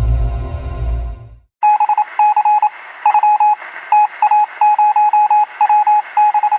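A deep, rumbling logo sting fades out in the first second and a half. Then comes a stream of short electronic beeps, all at one pitch, in quick runs of two to five: a computer-style typing sound effect as on-screen text appears letter by letter.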